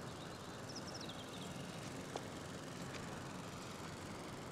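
Quiet outdoor ambience of a steady breeze, with a short run of high chirps about a second in and one faint click a little past two seconds.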